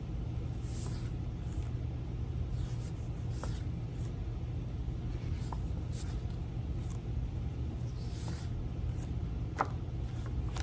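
Paper flash cards swishing softly every second or two as they are flipped through a stack, over a steady low room hum, with a small tap near the end.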